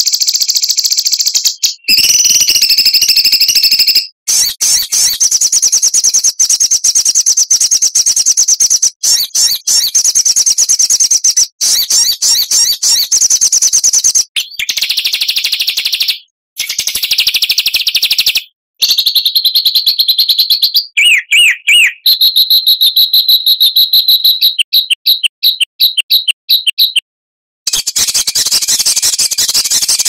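Songbird song: dense, rapid high-pitched trills and chattering phrases, in short spliced segments with brief breaks, ending in a run of quickly repeated short notes. It is a masteran tutor recording of harsh, rapid-fire song used to train caged songbirds.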